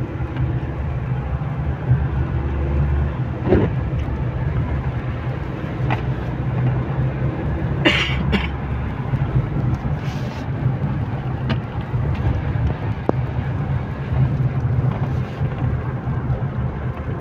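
Road noise inside a moving car's cabin on a wet road in light rain: a steady low rumble of engine and tyres, with a few short knocks now and then.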